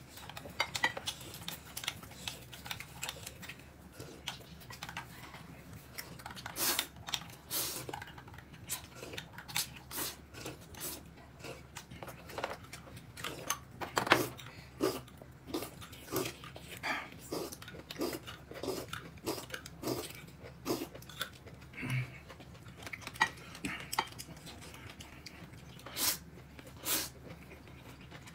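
Someone eating: chewing, with irregular clicks and knocks of utensils against bowls and dishes.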